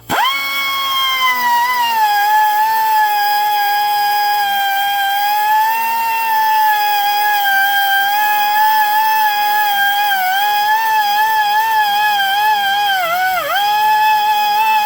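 Air-powered rotary tool spinning a grit pad against a geode, a steady high-pitched whine that starts abruptly and settles slightly lower, its pitch sagging briefly a couple of times near the end as the pad bears on the stone.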